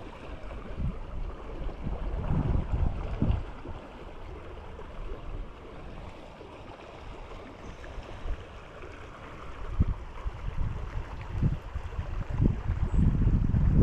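Creek water running steadily, with louder low rumbles a couple of seconds in and again near the end.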